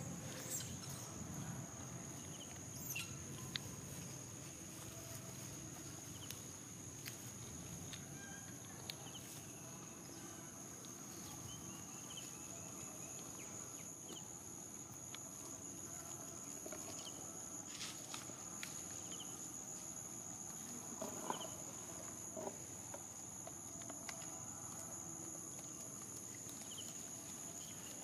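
Insects droning in one steady, high-pitched note, with a few faint clicks and short chirps scattered over it.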